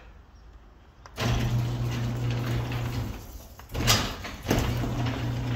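Electric garage door opener running: a steady motor hum with the rattle of the moving door for about two seconds. It stops, there is a sharp click, then it runs again near the end. The door is failing to close.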